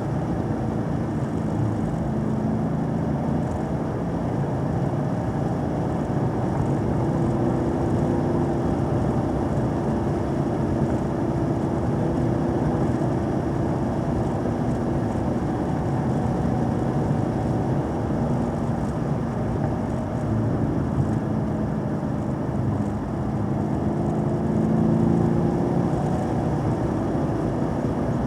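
Car engine and road noise while driving, the engine note shifting with the throttle; it climbs and gets louder about 24 seconds in.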